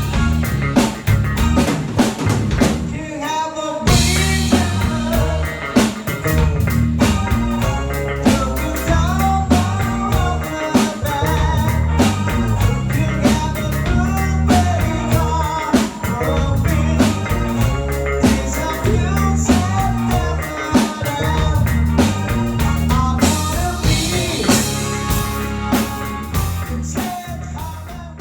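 Rock band playing with drums, bass, guitar and singing, fading out near the end.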